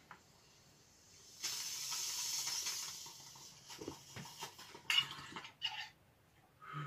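A hit from a water-filled glass bong: a steady hissing draw through the water starts about a second and a half in, lasts about two seconds and fades away. A short sharp sound follows about five seconds in.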